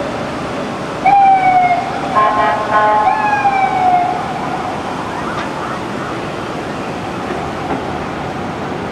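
Emergency-vehicle siren sounding for about three seconds: two falling sweeps with a short steady tone between them, over a steady wash of city traffic noise.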